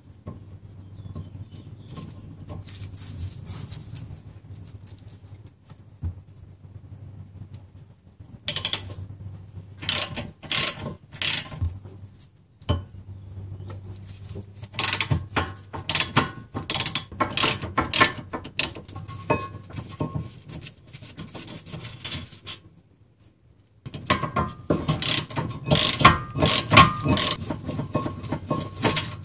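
Hand socket ratchet clicking in three spells of rapid strokes as the caliper bracket bolts are backed out, over a faint steady hum.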